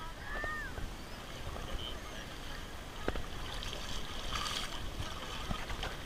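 Shallow lake water sloshing around a wading child, over a low rumble of wind on the microphone. There is a brief splash about four and a half seconds in.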